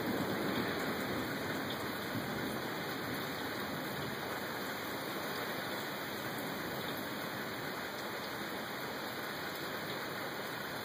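Steady rain falling, an even hiss that eases slightly over the first couple of seconds and then holds.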